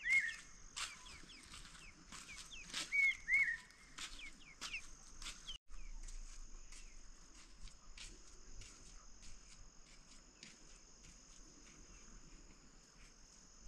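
Birds chirping and calling: many short sharp chirps, with two louder arching calls in the first few seconds, over a steady high hiss.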